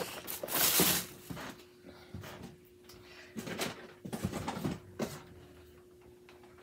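Cardboard toy boxes and plastic blister packs being handled and set down: a brief scraping rustle about half a second in, then scattered knocks and crinkles a few seconds later.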